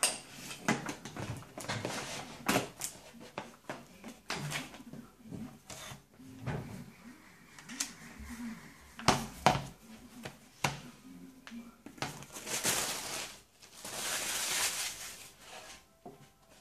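Hands handling a laptop power adapter and its cable on a table: a string of sharp clicks, knocks and rustles, with two longer rustling stretches near the end.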